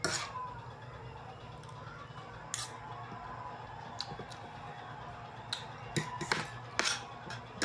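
Spoon and fork clinking against a ceramic plate of rice while eating: a few sharp, separate clicks, bunched closer together near the end, over a steady low hum.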